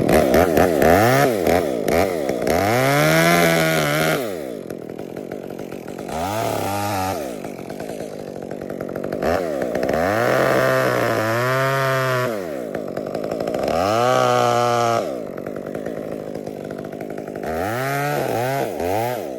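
Chainsaw revved up and let back down about five times, in short cuts a few seconds apart. It is cutting small notches into the trunk so a rigging sling will sit without slipping.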